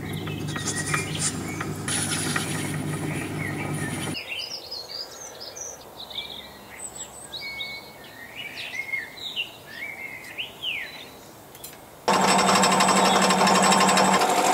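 A Myford lathe running while turning a brass part, stopping about four seconds in. Then birds chirping over a quiet workshop, and from about twelve seconds in the loud steady run of a Dore Westbury milling machine's end mill cutting metal.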